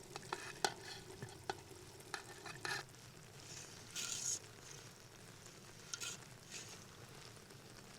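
Faint stirring and scraping in a cooking pot over a wood fire, with scattered light clicks and a low sizzle of food frying.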